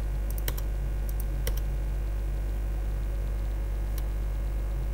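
Steady low electrical hum with a few scattered, isolated clicks of a computer keyboard.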